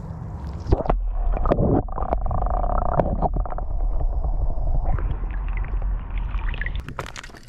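Lake water sloshing and splashing around a submerged GoPro as a smallmouth bass is released by hand, heard as a muffled, rumbling underwater sound with scattered knocks. Sharper splashes come near the end as the camera breaks back out of the water.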